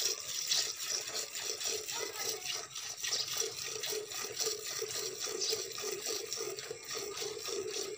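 A cow being milked by hand: rhythmic squirts of milk from the teats going into a metal pot already partly full of frothy milk, several squirts a second.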